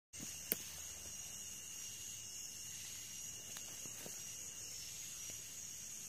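Steady chorus of night insects, a continuous high-pitched trilling hum. A single sharp click about half a second in and a few faint ticks.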